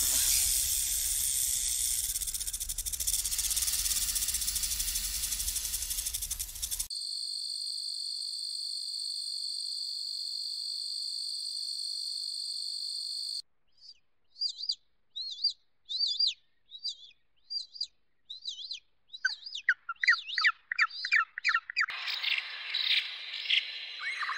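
A rattlesnake's rattle buzzing for about the first seven seconds, then a steady high-pitched insect-like drone for several seconds, then a run of quick separate chirps, and near the end a bird singing.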